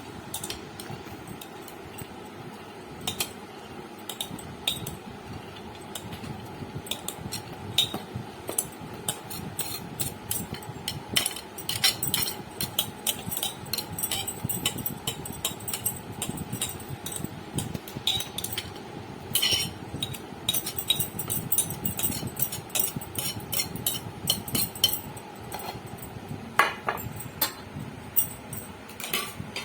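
Kitchen utensils clicking and clinking against a vessel: many small, irregular taps and knocks while chana dal is handled, growing busier about a third of the way in.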